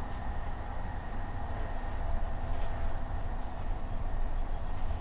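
Steady running rumble of a Corail passenger coach travelling at speed, wheels on rail, heard inside a closed compartment.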